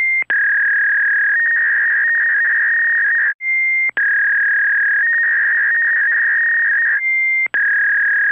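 Loud electronic test tone played over colour bars, pitched high and held steady. It repeats about every three and a half seconds: a short higher beep, a click, then a long lower tone that steps slightly higher partway through with a faint warble.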